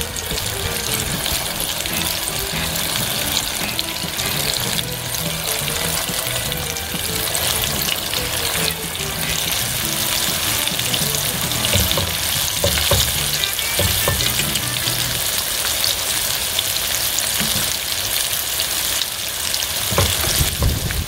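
Battered butterbur flowers deep-frying in hot oil: a steady, dense sizzle and crackle.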